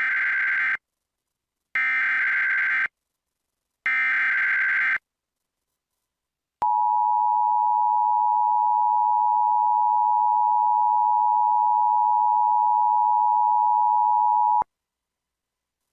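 Emergency Alert System tones opening a Required Monthly Test. Three SAME header bursts of digital data warble come first, each about a second long. Then the two-tone attention signal (853 and 960 Hz) holds steady for about eight seconds and cuts off sharply.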